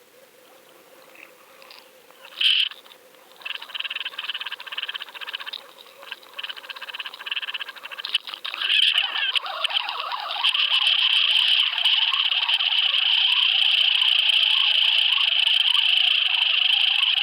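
A fishing reel cranked fast to burn a deep-diving crankbait back, starting patchy and turning steady and loud about ten seconds in. A single sharp snap comes about two and a half seconds in.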